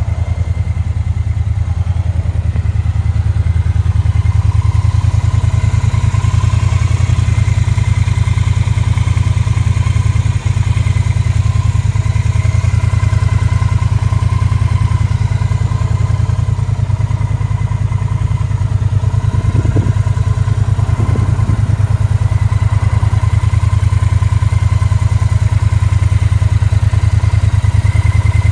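Triumph Bonneville T120's 1200 cc parallel-twin engine idling steadily.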